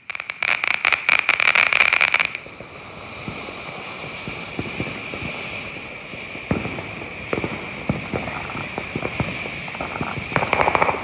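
Ground fountain fireworks spraying sparks: a steady hiss with dense crackling for the first two seconds or so, then a quieter hiss with scattered pops, and heavier crackling again near the end.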